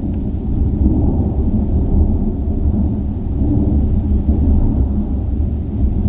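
Continuous rolling thunder from a supercell storm, countless claps running together into one unbroken low rumble that sounds like wind but is thunder.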